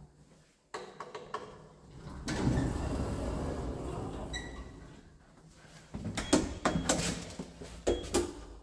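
Automatic sliding doors of a modern AS passenger lift opening with a low rolling rumble, and a short chime partway through. Then come several sharp knocks and steps, with two brief high beeps as a car call button is pressed.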